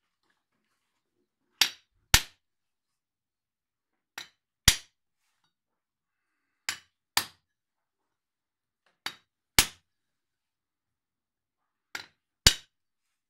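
Hammer striking a chisel set into a slab of Shiro Suita Japanese natural whetstone, splitting the stone along its layers. The strikes come in five pairs, each a light tap followed about half a second later by a harder, sharp blow, with a pause of about two seconds between pairs.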